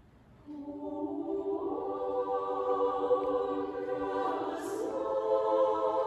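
Small mixed choir singing a cappella in a church. After a brief hush the voices come back in about half a second in and hold sustained chords.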